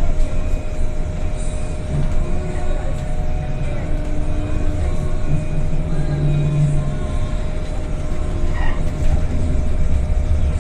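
Battery-electric bus running on the road: a steady low rumble of running noise with a thin, steady whine held throughout, and a low hum that swells briefly about six seconds in.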